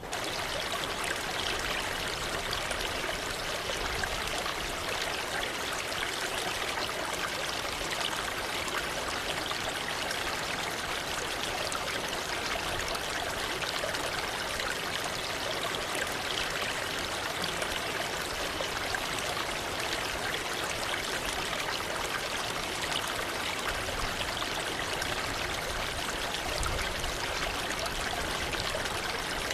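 Waterfall rushing in a steady, unbroken wash of water noise, strongest in the hissing upper range.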